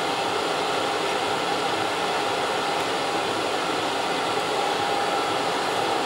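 Autoterm 4 kW diesel air heater running steadily, its blower and burner giving an even whooshing hum with a few faint steady tones.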